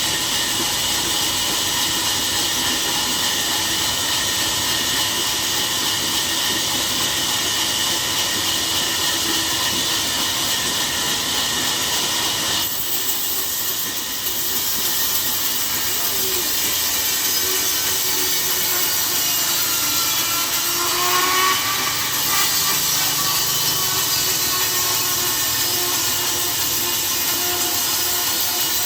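Sawmill saw cutting through a log: a steady, loud, hissing whine of blade through wood. The sound shifts abruptly about thirteen seconds in and again around twenty-two seconds.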